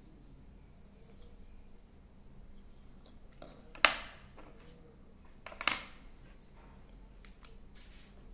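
Two sharp clicks of marker pens being handled, a loud one just under four seconds in and a softer one under two seconds later, over faint room tone.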